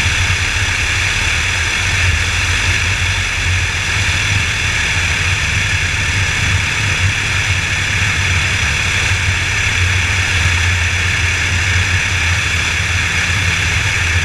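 A Piper Warrior's four-cylinder Lycoming engine and propeller idling with a steady low drone as the plane rolls out on the runway after landing.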